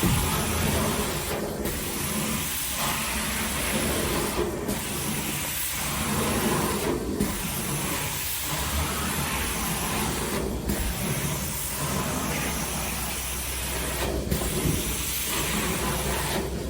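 Carpet steam-cleaning (hot-water extraction) wand spraying and sucking up rinse water in a steady hiss and rush, with the spray briefly cutting out every few seconds between strokes.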